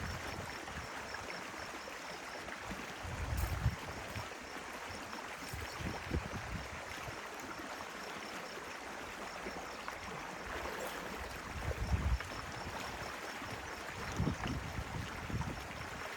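Stream water running steadily, with a few short low thumps.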